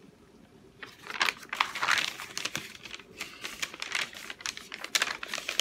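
Paper and plastic crinkling and rustling as a printed inventory sheet is handled and pressed flat beside small plastic bags of diamond-painting drills. It starts about a second in and goes on as an irregular run of crackles.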